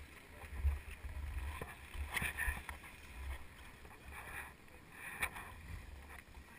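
Low, gusting wind rumble buffeting a GoPro Hero 2's microphone, with a few short scrapes and knocks as skis and poles shift on packed snow.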